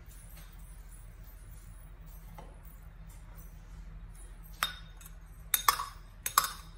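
Metal spoon clinking and scraping against a ceramic bowl as paste is scraped out, a handful of sharp clinks in the last two seconds over a low steady hum.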